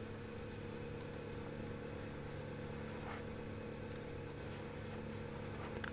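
Faint steady background hum and hiss with a few constant tones: room tone, with no distinct event.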